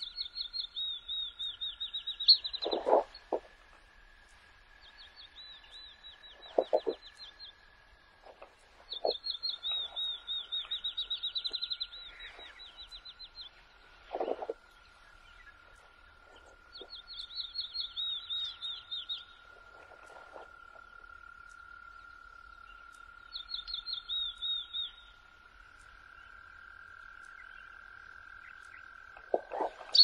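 Animal calls: bursts of rapid high trills lasting one to three seconds, repeating every few seconds, with a few short lower calls between them and a faint steady high tone.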